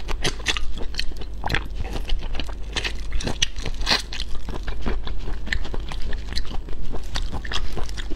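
Biting and chewing whole shell-on marinated shrimp close to the microphone: repeated sharp crunches and wet clicks of shell and flesh, several a second.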